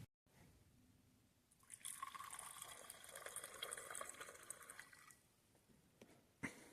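Liquid pouring into a container for about three and a half seconds, starting about a second and a half in, then a single short click near the end.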